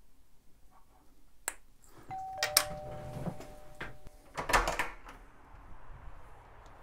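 A doorbell chime sounds a two-note ding-dong about two seconds in, the two tones hanging for about two seconds. Sharp clicks come before it, and a couple of loud knocks follow just after it fades.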